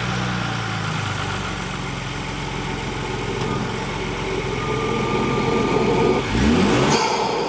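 Ford Bronco's turbocharged engine idling steadily just after starting, picked up at its stock factory air intake and filter. About six seconds in, a short rev rises and falls back to idle.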